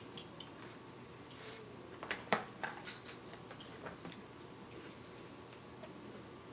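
Table knife sawing through a well-done steak in a black plastic takeout container, the fork holding it down: scattered clicks and scrapes of metal on meat and plastic, busiest about two to four seconds in, the loudest a sharp click just after two seconds.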